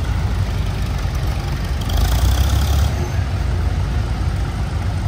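An old vehicle engine running steadily at a low pitch, with a louder rush of hiss for about a second, two seconds in.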